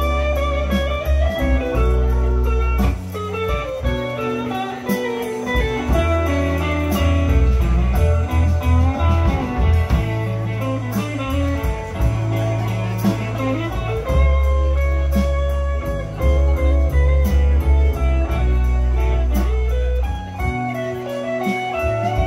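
Live blues band playing an instrumental passage, electric guitar to the fore over bass and drums, with no singing.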